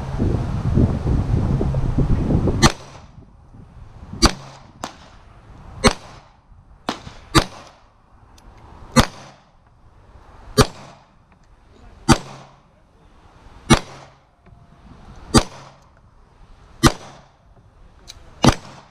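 Glock 19X 9mm pistol firing single shots at a slow, steady pace, about one every second and a half, with a few fainter shots in between. Wind noise on the microphone covers the first few seconds.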